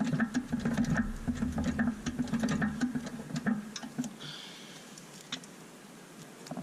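Rapid clicking, knocking and scraping of metal suspension parts being worked by hand as the rear hub knuckle is manoeuvred into place, busiest for the first four seconds, then a few separate clicks.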